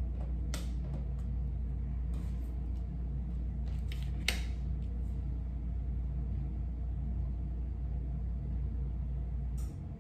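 Steady low hum with a few soft clicks and rustles of tarot cards being handled; the hum cuts off near the end.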